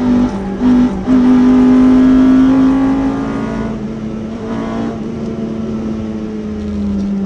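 Honda B18C 1.8-litre DOHC VTEC inline-four running at high revs under load, heard from inside the Civic's cabin. The note dips out twice in the first second, is loudest for the next two seconds, then holds steadier and eases slightly lower in pitch near the end.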